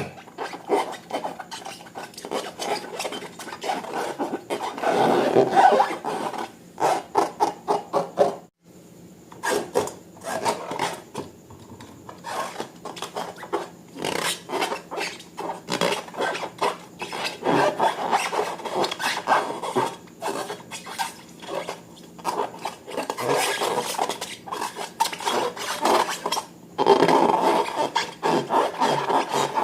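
Slime and balloons being worked by hand: dense, irregular sticky crackling and rubbing that comes and goes in waves.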